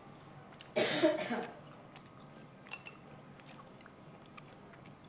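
A short, loud vocal burst like a cough about a second in, then soft scattered clicks of chopsticks and spoons on bowls and chewing at a hotpot meal.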